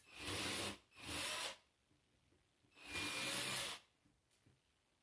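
Cordless drill-driver run in three short bursts, a longer one near the three-second mark, as screws are driven out of the fan.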